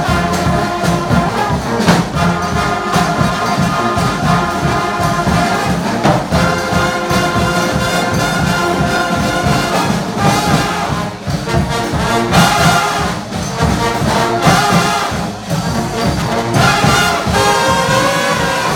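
Brass band playing, trumpets and trombones over drums, loud and unbroken.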